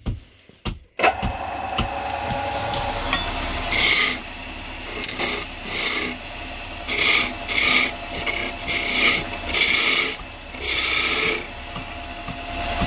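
Wood lathe: after a few knocks it starts running with a steady hum about a second in. A hand-held tool is then pressed against the spinning wood in repeated short scraping passes, about ten of them.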